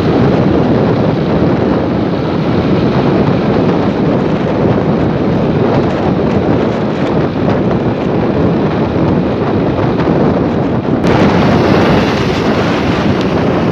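Heavy wind buffeting the microphone of a moving vehicle, with engine and road noise underneath. The sound changes abruptly about eleven seconds in.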